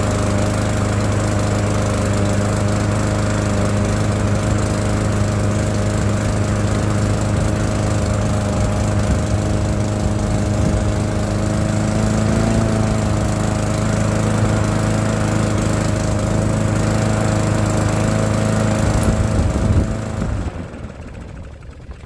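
Murray push mower's small single-cylinder engine running steadily at a raised idle, set by bending the throttle lever to add tension to the governor spring. It stops about twenty seconds in.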